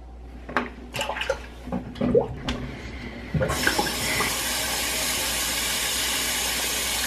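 A bathroom sink tap is turned on and runs steadily for the second half. Before it comes on there are a few light clicks and knocks.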